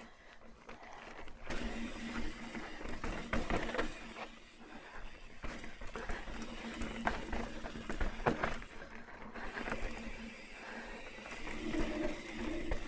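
Trek Roscoe 9 hardtail mountain bike rolling down rocky dirt singletrack on its 29 x 2.6 tyres: tyre noise on dirt and rock, with frequent clicks and clatters as the bike goes over bumps and a steady hum underneath. It gets louder about a second and a half in.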